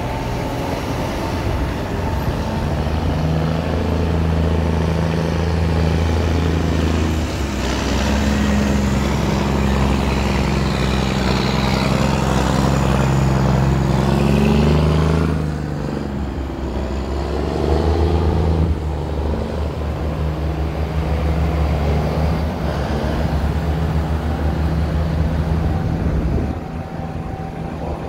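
A procession of large modern diesel tractors, including a Claas and a John Deere, driving past close by on a cobbled lane. Their engines run steadily, swelling and easing as each tractor goes by, with dips about halfway through and again near the end.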